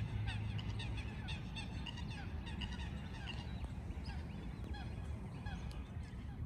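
A flock of birds calling over and over, several short calls a second, over a steady low rumble.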